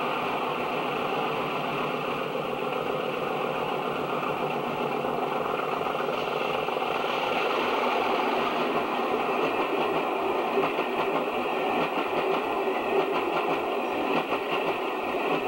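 Diesel locomotive engine running as it hauls a passenger train past, followed by the coaches rolling by on the rails, with sharper clicks from the wheels in the second half.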